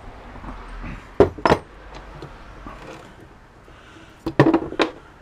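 Hand cutters snipping and knocking at an electric stapler's metal and plastic parts: two pairs of sharp clicks, about a second in and again near the end.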